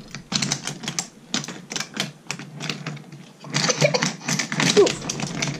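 Wooden toy trains and wooden track pieces clattering as they are handled on a table: rapid, irregular clicks and knocks, thickest for a second or two about three and a half seconds in.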